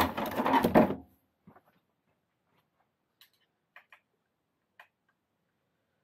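A short clatter of hand tools being rummaged through, then a few faint, scattered clicks of small tools and parts being picked up and handled.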